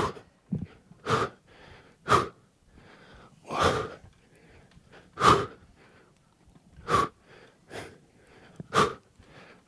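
A man's sharp, forceful breaths out, one with each rep of decline push-ups with his feet raised on a chair: about eight short puffs, roughly one every second to second and a half, quiet in between.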